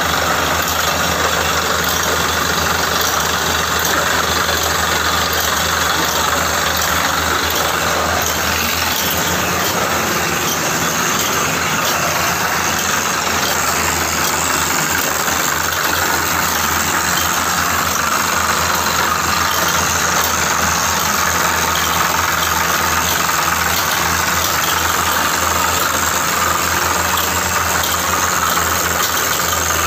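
Small hydraulic borewell drilling rig running steadily as it drills a water bore: a constant machine noise with a steady low hum and no change in pace.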